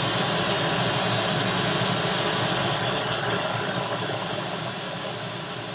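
Pink-noise test signal from a DAW signal generator, set to −20 dB RMS, playing as a steady, even hiss through the left-hand studio monitor to calibrate it to 79 dB SPL. It eases gradually quieter through the second half.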